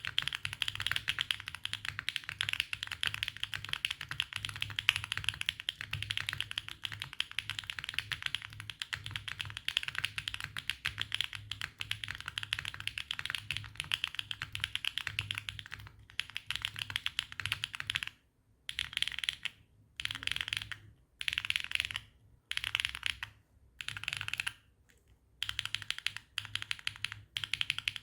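Typing on a Neo80 mechanical keyboard fitted with HMX Sandstorm tactile switches on a carbon-fibre plate with no foam: a dense run of key clacks, turning after about 16 seconds into short bursts of typing with brief pauses between them.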